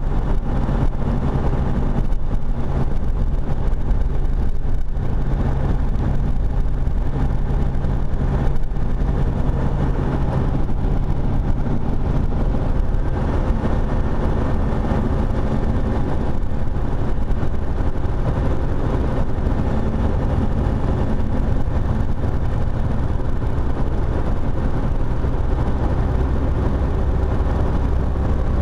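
Freightliner semi-truck engine and road noise heard from inside the cab while cruising, a steady low drone. The engine note shifts lower near the end.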